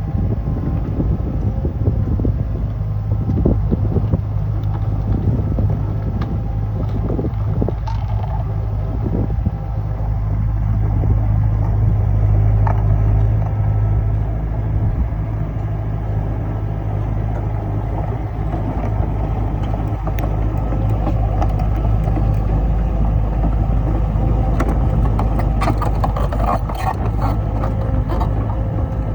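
Excavator's diesel engine running steadily with a low rumble, with a cluster of clicks and knocks near the end.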